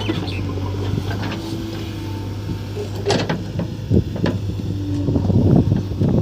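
Diesel engine of heavy earthmoving machinery running steadily, with sharp knocks about three seconds in and a run of clattering knocks near the end, as stone is loaded.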